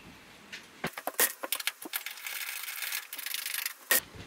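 A run of sharp metallic clicks and scrapes from a cargo clip and a hand tool being handled while the clip is taken off the van's wall. A stretch of high, hiss-like noise comes in the middle, and one loud click comes near the end.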